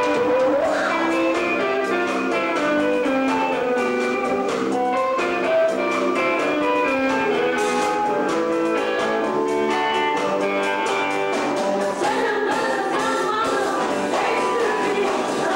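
A live band playing continuously: electric guitar, bass guitar and drums, with a singer on a microphone.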